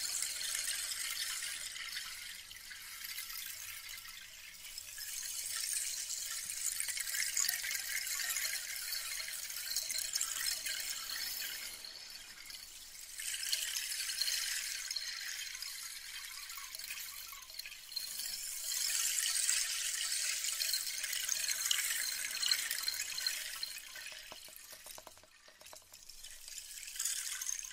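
Close-up crackly hiss of an ASMR trigger on a 3Dio binaural microphone. It swells and fades in waves a few seconds long, with short dips between them.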